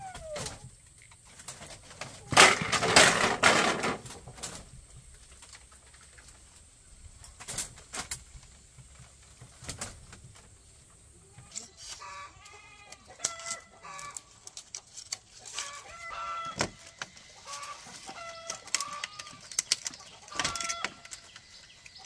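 Chickens clucking in short repeated calls through the second half, over scattered clicks and rustles of split-bamboo strips being handled and woven into a wall panel. The loudest sound is a rustle about two seconds in.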